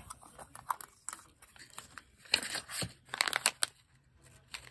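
Crinkly plastic herb pouch being picked up and handled, crackling in short bursts that are loudest past the middle.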